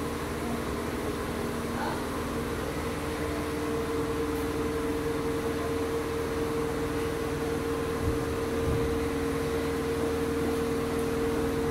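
Berlin S-Bahn class 485 electric train standing with its auxiliary equipment humming steadily: a few steady tones over an even noise. A brief low thump comes about eight seconds in.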